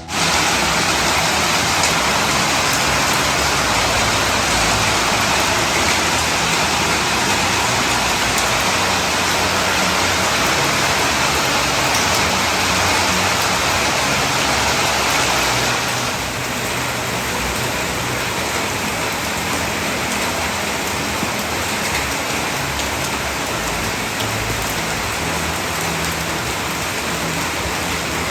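Heavy rain pouring down, a steady dense hiss. It drops a little in level about sixteen seconds in.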